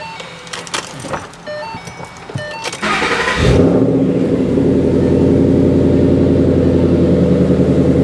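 Ford Mustang's engine cranked by the starter about three seconds in, catching quickly and settling into a steady idle: battery power is restored through the remote kill switch. Before the start, clicks and short repeated electronic beeps.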